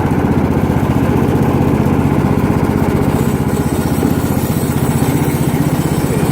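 Toro LX420 lawn tractor engine running steadily at idle, with a small pinging noise that the owner traces to a loose pin on a deck belt guide.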